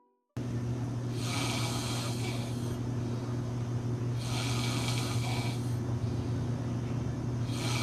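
A man snoring loudly. It starts abruptly just after the music stops: a steady low drone, with a breathy rush about every three seconds.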